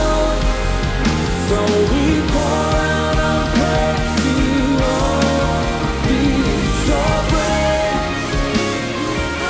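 A live worship band plays a rock-style ballad, with steady drum hits under bass, sustained chords and a melody line.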